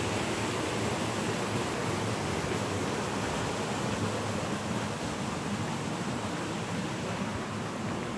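Steady rushing wind noise, even throughout, with no distinct events.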